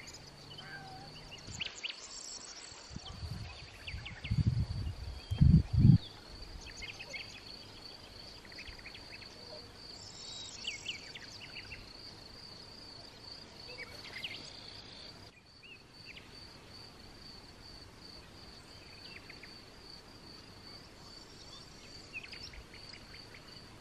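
An insect's steady high-pitched trill runs throughout, with scattered short bird chirps over it. A few low muffled thumps, the loudest sounds, come about four to six seconds in.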